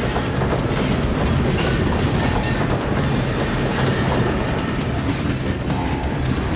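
Heavy iron ore freight train rolling slowly over newly welded track, steel wheels clacking on the rail under the loaded wagons, with a low steady hum from the diesel locomotives.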